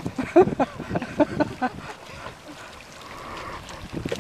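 Water and mud sloshing around the legs of people wading through a flooded rice paddy. A few short spoken words come in the first second and a half.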